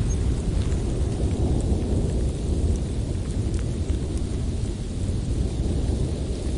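Strong blizzard wind blowing steadily, a deep rumbling noise with a few faint ticks over it.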